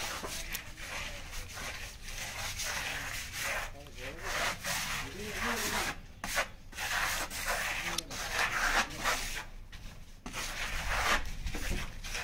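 A hand tool scraping over a rough surface in repeated strokes, with short breaks between runs.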